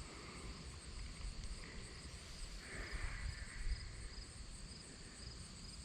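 Insects trilling steadily, with a high chirp pulsing about twice a second.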